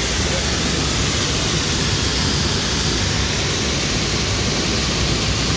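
Steady roar of water pouring over the Upper Duden waterfall, an even rushing noise with no break.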